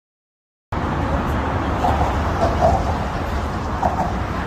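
Dead silence for under a second, then steady outdoor traffic rumble with faint voices of passers-by on a bridge walkway.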